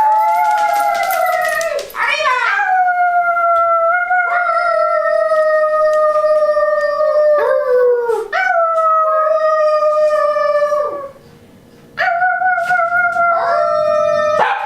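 A dog howling: a string of long drawn-out howls, each sliding slowly down in pitch, with a short pause about eleven seconds in.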